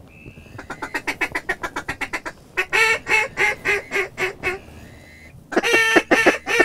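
A mallard duck call blown in a string of hen quacks. A quick run of short quacks comes first, then a slower string of about five longer quacks, then a loud run of quacks starting near the end.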